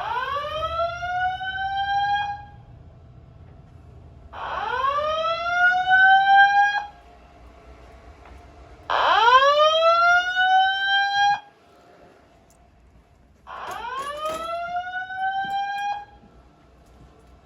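Fire alarm speakers on a Simplex 2001-8005 audio evacuation system sounding a whoop tone. Four rising sweeps, each a little over two seconds, repeat every four to five seconds with a short quiet gap between them.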